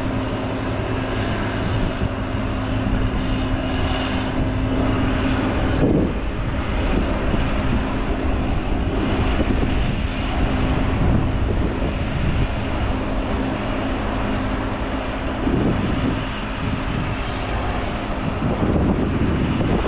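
Engine running steadily: a constant drone over a low rumble and rushing noise.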